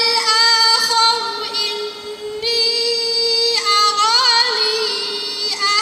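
A girl reciting the Qur'an in the melodic tajweed style. A single high voice holds long drawn-out notes, dips briefly about two seconds in, and wavers in an ornament about four seconds in.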